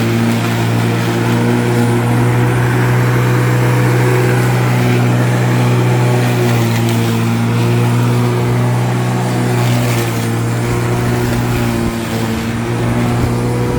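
Lawn mower running at a steady speed, a constant low engine hum with no change in pitch.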